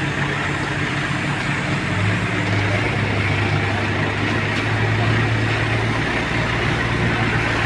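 A heavy vehicle's engine running steadily with a low hum. Its note changes and grows a little louder about two seconds in.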